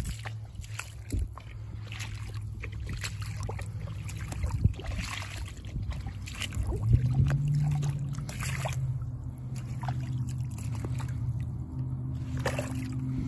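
Rubber boots squelching and splashing step after step through waterlogged mud and puddles, with a low steady hum underneath.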